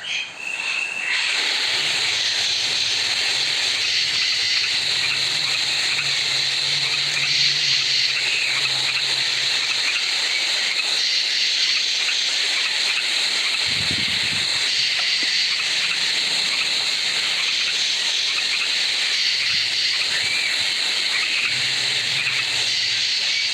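A steady, even hiss from one of the app's ambient sleep sounds, starting about a second in and running on unchanged.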